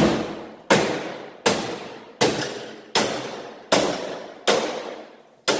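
A hatchet striking the underside of a Chevrolet's hood panel again and again, about eight evenly spaced blows less than a second apart, each with a metallic ring that dies away before the next.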